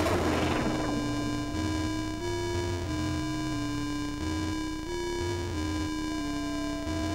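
Buzzy electronic tones from live circuit-bent toy electronics: a mid-pitched tone stepping back and forth between two pitches about every half second over a low drone that switches pitch too, with a noisy hiss dying away in the first second.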